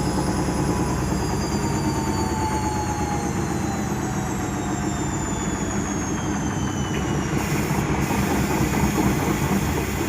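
Arçelik washing machine spinning hard, its drum and cabinet rattling and banging as the machine shakes violently, enough to walk across the floor. The motor's whine falls slowly in pitch as the spin slows.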